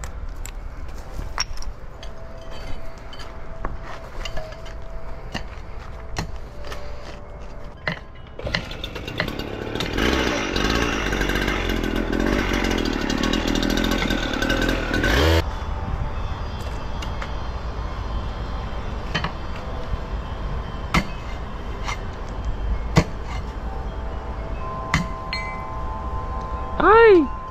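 Sharp knocks of hand tools striking broken concrete curb, with a gas-powered cut-off saw running for several seconds in the middle before it cuts off suddenly. Near the end comes a short, loud tone that rises and then falls in pitch.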